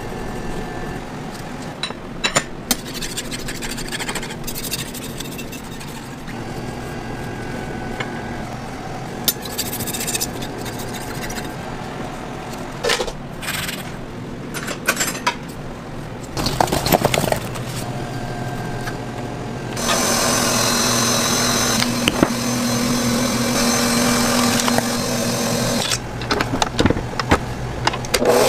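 Cake-making work sounds: a knife and a metal cake ring scraping and clicking against sponge cake layers and a countertop, then a stand mixer's motor running steadily for about six seconds before more clinks near the end.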